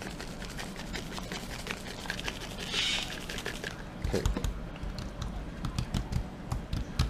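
Seasoning shaker shaken over raw fish fillets, a rapid run of small ticks with a brief hiss about three seconds in, then hands patting and pressing the fillets on a wooden cutting board with soft low thumps.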